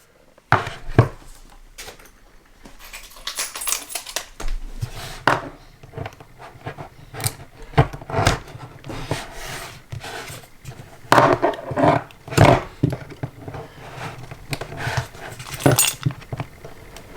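Handling and unwrapping a small earphone retail box by hand: irregular clicks, taps and scrapes with rustling in between, with denser clusters around the middle and near the end.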